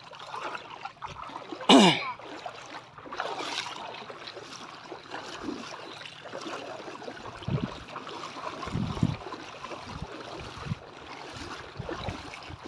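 Shallow seawater sloshing and splashing around wading feet, with soft thuds of steps. About two seconds in there is one brief loud falling sound.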